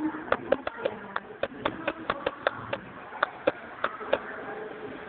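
Rapid, irregular tapping on a hard surface, a few sharp taps a second, which stops about four seconds in.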